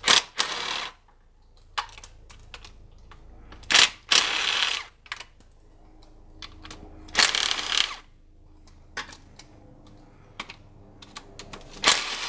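Ratchet on a long socket extension clicking in four quick runs, about 3 to 4 s apart, as 10 mm oil pan bolts on a BMW E46 are unscrewed, with scattered light ticks between the runs.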